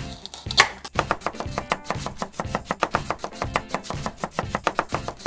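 Toy knife chopping a soft toy peach on a plastic cutting board: a quick run of tapping strokes, several a second, starting about a second in.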